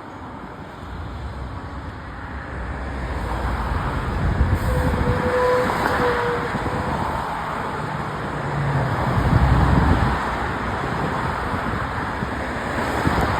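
Fire trucks driving past on a response, their heavy engine rumble swelling to its loudest about nine to ten seconds in. A brief horn note sounds about five seconds in.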